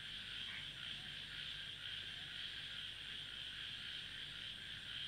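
Steady night-time chorus of frogs and insects, faint and unbroken, with a low hum underneath that cuts off suddenly at the very end.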